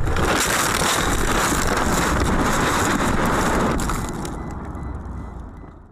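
A car going off a snowy road and rolling over, heard from its own dashcam: a loud rush of scraping and knocking noise for about four seconds, then fading out.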